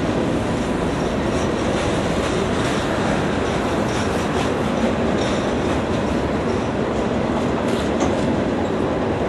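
Freight train's hopper cars and boxcars rolling past: a steady rumble of steel wheels on the rails with light clicking.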